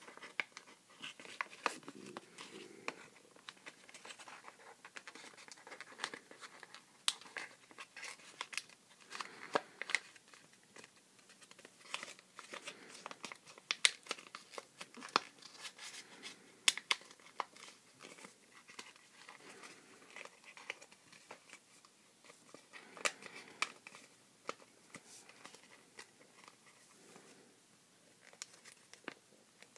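Paper being folded and creased by hand for origami: irregular crinkling with many sharp little crackles as the sheet is bent and pressed.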